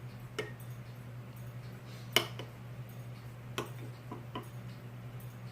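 A spoon clinking against a bowl about five times, sharpest about two seconds in, over a steady low hum.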